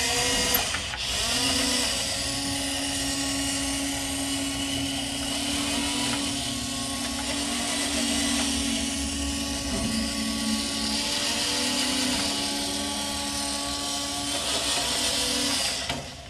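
Small electric motors of a Robotix toy robot whirring as it is driven from its push-button control pad: a steady whine that starts about a second in, dips in pitch for a moment twice in the second half, and stops near the end.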